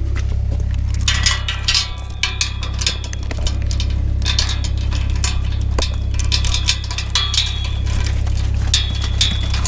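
Dense, irregular metallic clinking and rattling, many small clicks close together, over a steady low hum.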